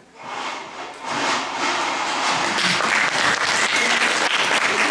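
Audience applauding, starting softly and swelling to full applause about a second in.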